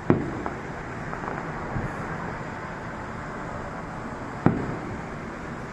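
Two fireworks shells bursting, sharp bangs about four and a half seconds apart, each trailing off in a short rumble, with a few fainter pops between them over steady background noise.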